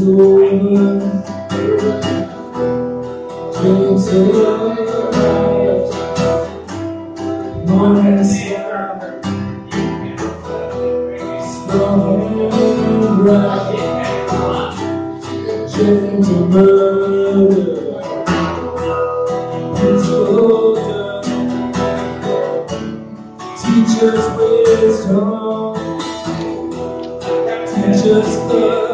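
Live acoustic guitar song: steel-string acoustic guitar strummed and picked while a man sings.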